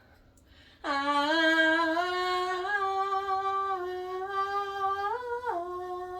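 A woman singing one long wordless note that starts about a second in and steps up and down in pitch several times, with a brief higher step near the end before it settles and stops.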